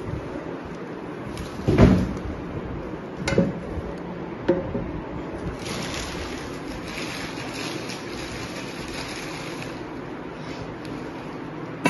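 Cardboard pressure-cooker box being handled and cut open with a knife: a few sharp knocks, then a rasping, scraping stretch of a few seconds as the cardboard and tape are cut.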